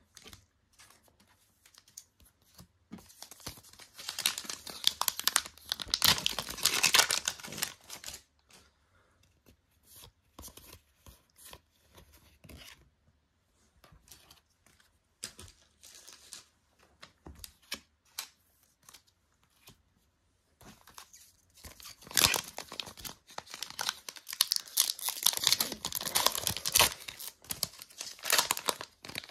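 Foil wrappers of Kayou Naruto trading card packs being torn open and crinkled in two bursts, about four seconds in and again near the end. Between them come light rustles and taps of cards being handled.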